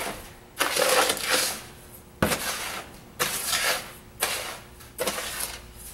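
Metal spoon scraping and stirring dry Epsom salt mixed with herbs in a plastic tub: about five gritty scraping strokes, roughly one a second.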